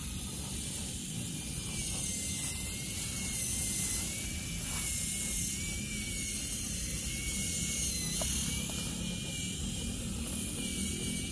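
Electric motor and geared drivetrain of a 1/10-scale RC crawler truck whining as it creeps up a muddy trail, the thin whine wavering up and down in pitch as the throttle changes, over a steady low rumble.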